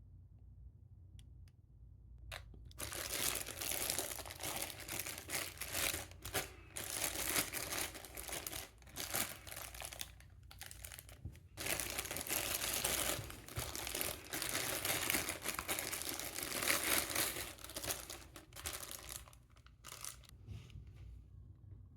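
Packaging crinkling and rustling as it is handled and opened, in two long spells, the second starting after a brief pause near the middle, with a few light clicks of handling around them.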